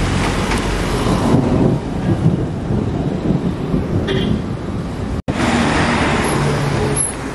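Road traffic on a wet street: buses, cars and a motorcycle driving past, with low engine rumble over a steady hiss. The sound breaks off for an instant about five seconds in.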